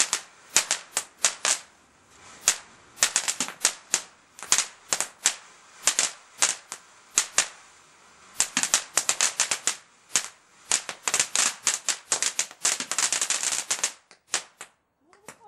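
Garden firework fountain spraying sparks with a dense, irregular crackle of sharp pops that come in clusters with short lulls between. The crackling stops suddenly about a second before the end as the fountain burns out.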